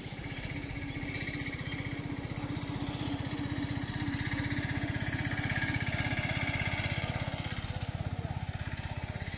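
An engine running steadily with a fast, even low pulse, growing a little louder toward the middle.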